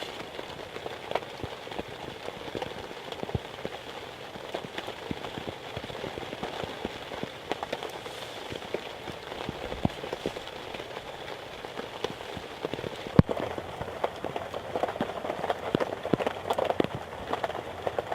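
A small fire of fatwood shavings crackling, with irregular snaps and a sharper pop about thirteen seconds in.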